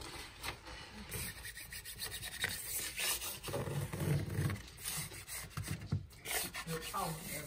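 A plastic smoothing card scraping and rubbing over peel-and-stick faux brick wallpaper, pressing it flat onto the wall, in a run of short, uneven strokes.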